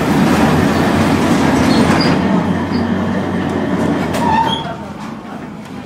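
Tram wheels running on the rails, heard from inside the car as a loud, dense rumble. Short wheel squeals come about four seconds in, and then the noise eases off.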